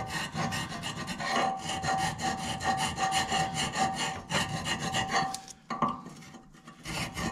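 Hand file rasping back and forth in quick short strokes over the rusty pad-slide surfaces of a Volkswagen Golf Mk6 rear brake caliper carrier, taking off surface rust so the brake pads can slide freely. The strokes pause briefly about five and a half seconds in, then start again.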